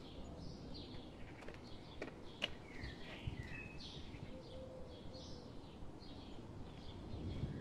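Small birds chirping and calling over and over, short repeated chirps throughout, over a low steady background rumble, with a couple of faint clicks.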